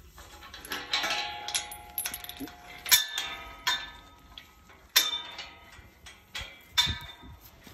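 Chain being unhooked and a galvanised steel farm gate opened: a string of about ten metallic clanks and chain rattles, each ringing on briefly, the loudest about three and five seconds in.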